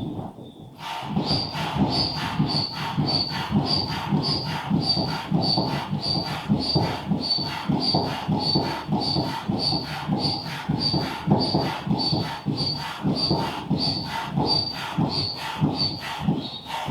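Air pump inflating an inflatable boat: steady rhythmic strokes, about two a second, each a puff of air with a short whistle. It pauses briefly just after the start and stops abruptly at the end.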